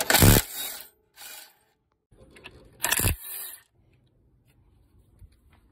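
Cordless impact wrench running in three short bursts, loosening the alternator mounting bolts; its pitch falls as the first and last bursts wind down.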